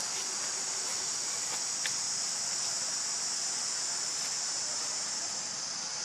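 A steady, high-pitched insect chorus that does not let up, with one faint tick about two seconds in.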